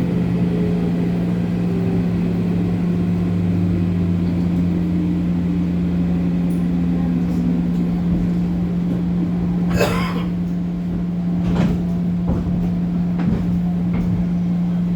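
Running sound inside a JR 205 series electric motor car: a whine from the traction motors and gears that falls in pitch as the train slows, over a steady electric hum. Several sharp clacks and rattles come in the second half, the loudest about two thirds of the way in.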